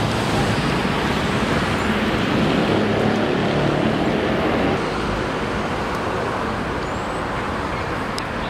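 Steady road traffic noise from a busy city boulevard, cars and buses passing in a constant rush, easing slightly about halfway through.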